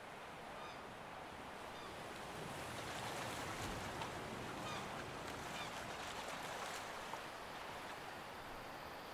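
Faint, steady sea ambience of washing waves, gradually getting louder over the first few seconds, with a few short faint bird calls over it.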